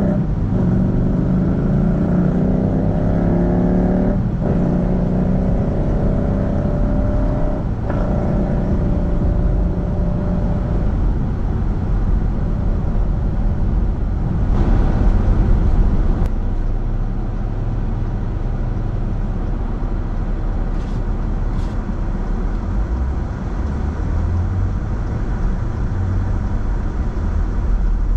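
Car accelerating from a start, its engine pitch climbing, then dropping at two gear changes before it settles. After that come steady tyre and road noise while cruising, with a brief louder swell of traffic noise about halfway through.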